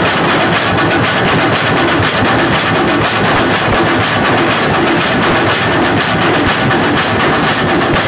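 A group of drummers beating stick-played drums together in a loud, fast, dense rhythm that never pauses.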